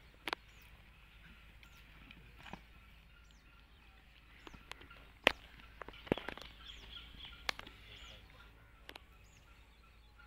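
Outdoor ambience with birds chirping faintly and repeatedly, broken by a handful of scattered sharp taps, the loudest about five seconds in.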